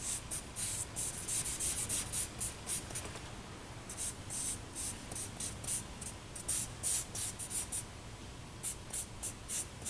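A charcoal stick scratching across drawing paper in rapid short strokes, several a second. The strokes come in three runs, with brief pauses about three seconds in and again near eight seconds.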